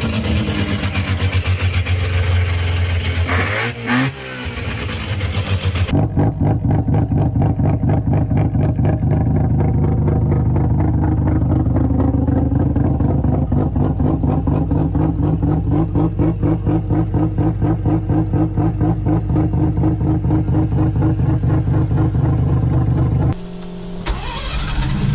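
Mazda 12A rotary engines running in a string of short clips: a rev about four seconds in, then a long steady, rapidly pulsing idle, and a rising rev near the end.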